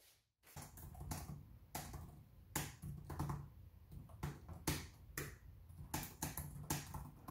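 Typing on a ThinkPad laptop keyboard: irregular keystroke clicks, about three a second, starting about half a second in.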